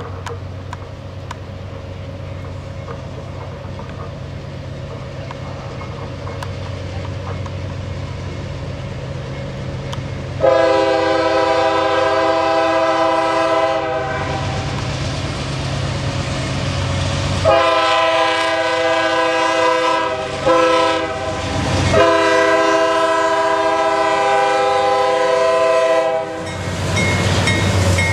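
CSX diesel freight locomotives approaching, their engine rumble growing steadily louder, then the multi-chime air horn sounding the grade-crossing signal: two long blasts, one short, one long. After the last blast the lead units go by with their engines running loud.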